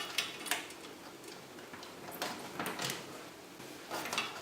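Scattered small clicks and taps of metal motherboard standoffs being handled and fitted into a PC case, about eight irregularly spaced.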